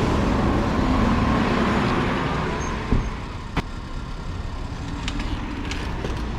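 Steady street and traffic road noise, with a rumble that eases off about three seconds in and a single sharp click soon after.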